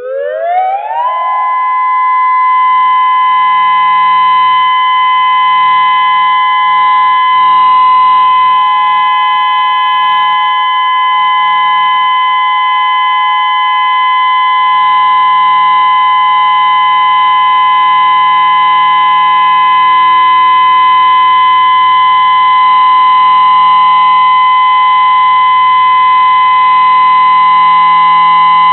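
Whelen 2016 outdoor warning siren sounding for a test. It starts suddenly, its pitch rising quickly over about a second, then holds a loud steady tone.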